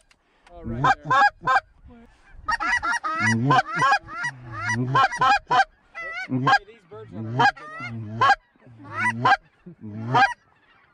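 Geese honking and clucking: a fast string of short, pitched calls, with a brief lull about two seconds in.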